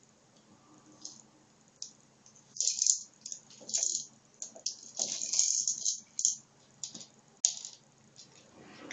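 Dry cat kibble rattling inside a plastic AniOne snack ball as a cat paws and rolls it about, in a run of irregular rattling shakes from about two and a half seconds in to about seven and a half seconds in.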